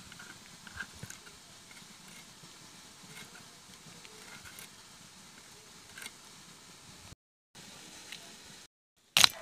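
Faint, scattered small clicks and soft snips as raw prawns are cut and peeled against a boti, the curved floor-mounted kitchen blade. A sharp, loud click comes near the end.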